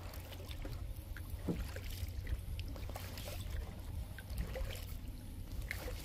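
Kayak paddling: paddle blades dipping into the water with small splashes, drips and trickles scattered through, over a steady low rumble.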